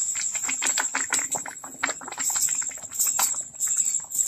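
Steel spoon scraping and clicking irregularly against a stainless-steel pan as sugar is poured into thick curdled milk and stirred in. A steady high-pitched whine runs underneath.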